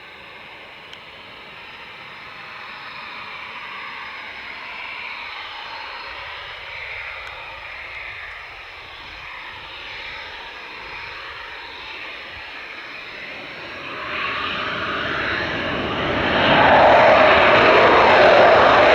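Eurofighter Typhoon jet engines spooling up for a takeoff run: a rushing jet noise that slowly grows, then steps up sharply twice in the last five seconds to a loud roar.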